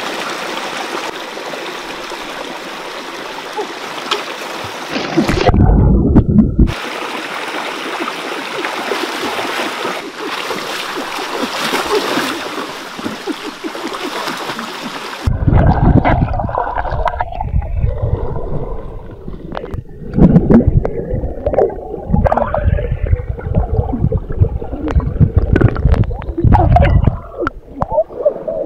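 Stream water running over rocks, with a brief deep splash about five seconds in. From about halfway, the steady hiss gives way to heavy, irregular splashing and sloshing as someone wades and gropes for fish by hand in the shallow water.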